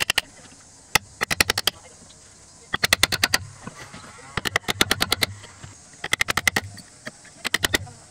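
Quick hammer taps on a Japanese chisel chopping a mortise in a Keyaki (Japanese zelkova) table leg. The taps come in short runs of several strikes each, with brief pauses between runs.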